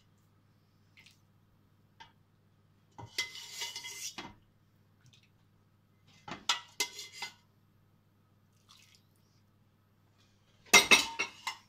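Metal ladle clinking and scraping against a stainless steel soup pot and a serving tureen as soup is ladled across, in three short bursts a few seconds apart, the last the loudest. A faint steady low hum underneath.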